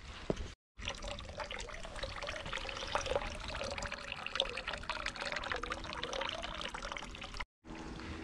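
Water pouring in a steady stream from a bronze dragon spout into a shrine's stone purification basin (temizuya), splashing on the water's surface. It starts abruptly just under a second in and cuts off abruptly near the end.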